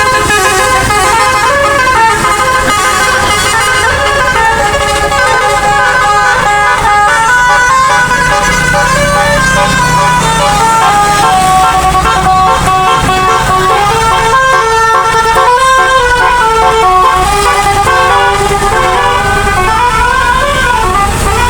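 Bus telolet horn of the basuri type playing a long, continuous melody of loud, stepped horn notes that change pitch every fraction of a second.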